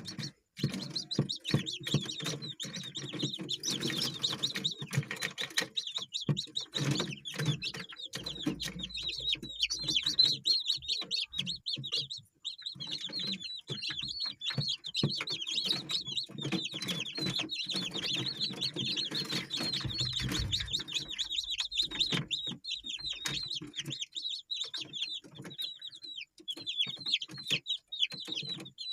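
Ayam kampung chickens in a flock: many high, rapid peeping chirps, typical of chicks, over lower clucking from the older birds.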